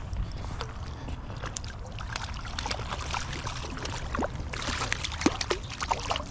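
River water splashing and trickling in many small, irregular splashes over a steady low rush of current, as a hooked trout is played and brought in.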